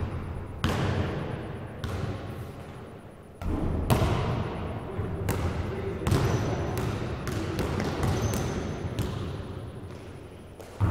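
A basketball bouncing on a hard gym floor: a dozen or so irregular thuds, each echoing around the large hall.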